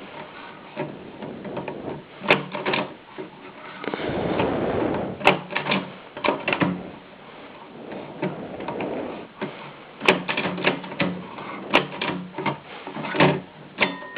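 A 1925 AEG Mignon Model 4 index typewriter being typed on: irregular clacks as each letter is struck and the carriage steps along. A brief rasping rush comes about four seconds in.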